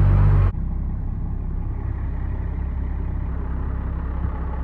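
12-valve Cummins straight-six diesel running loud for about half a second, then dropping suddenly to a steady idle with an even, rapid diesel knock as it warms up after a hard cold start.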